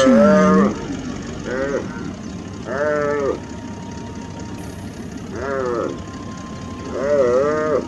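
Gemsbok bawling in distress as cheetahs bring it down: about five short calls, each rising and falling in pitch, repeated every second or two. A low engine hum runs underneath.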